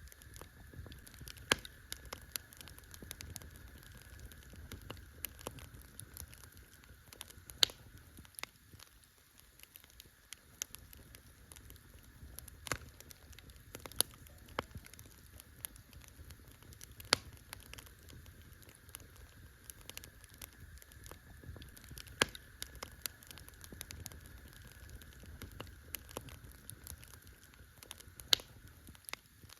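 Campfire crackling: burning wood giving off irregular sharp pops and snaps, a loud one every second or few, over a low steady rumble from the fire.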